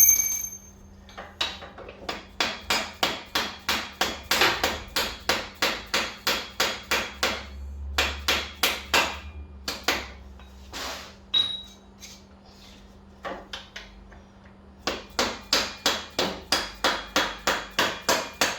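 Hammer striking a brass punch to drive the rear axle shaft out of a Kawasaki 1700 Voyager's swing arm. A sharp, ringing blow at the start is followed by steady taps about three a second, a pause of a few seconds, then another run of taps near the end.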